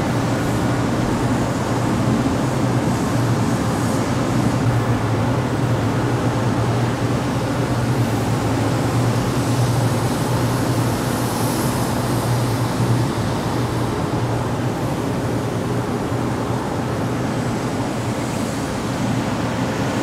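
Industrial exhaust fan running steadily: a constant rush of air over a low hum, the hum easing a little about two-thirds of the way through.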